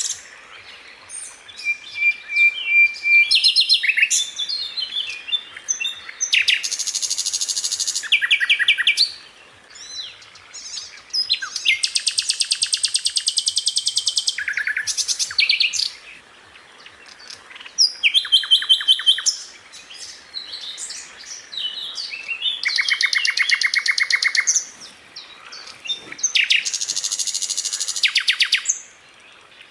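Sikatan londo flycatcher singing: a string of fast, rattling trill phrases, each a second or two long, with short sharp chirps between them.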